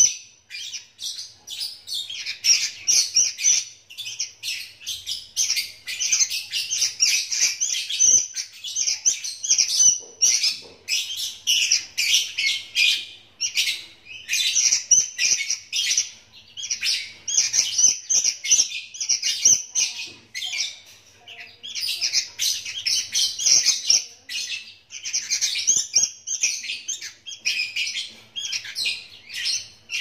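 Fledgling sooty-headed bulbul (kutilang), about 35 days old, giving fast, high chirping begging calls in a near-continuous stream, with a few short pauses.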